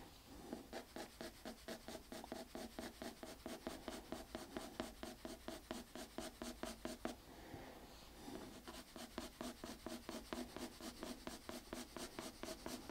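Wooden graphite pencil shading on drawing paper: quick, even back-and-forth hatching strokes, several a second, with a short pause about seven seconds in.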